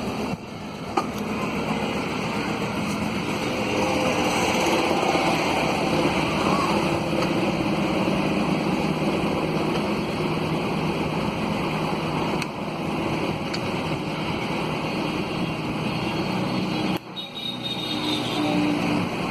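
Steady vehicle noise, with a sharp click about a second in and a brief sudden drop near the end.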